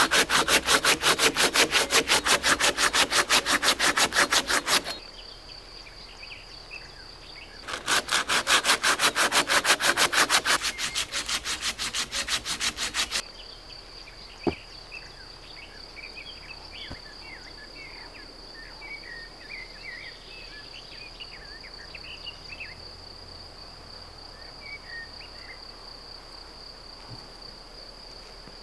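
Curved pruning saw cutting through a log with fast, even back-and-forth strokes, in two runs, the second stopping about thirteen seconds in. A single sharp knock follows, then a steady high insect trill with scattered high chirps.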